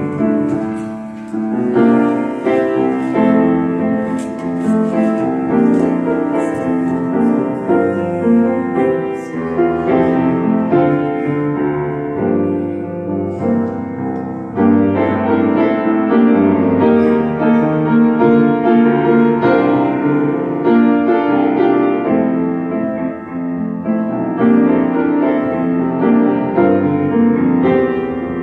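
Solo grand piano playing a continuous piece of sustained chords and melody, with brief softenings between phrases about a second in and again about fourteen seconds in.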